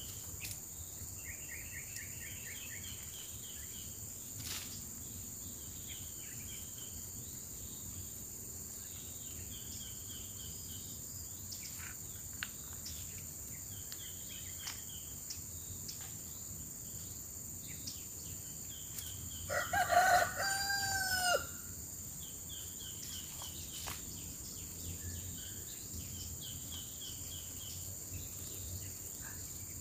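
A rooster crows once, about two seconds long, a little past the middle. Around it, insects trill in short repeated pulses over a steady high-pitched insect drone, with a few faint ticks.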